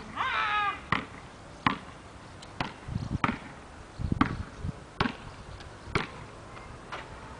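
Basketball being dribbled on a paved court, bouncing about once a second at a slightly uneven pace. A brief high-pitched squeal sounds near the start.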